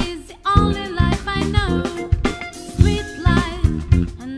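A song with a steady drum beat and a singing voice.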